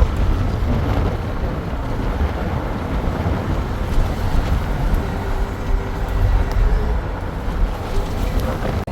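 Steady low rumble of a moving car on the road, engine and tyre noise.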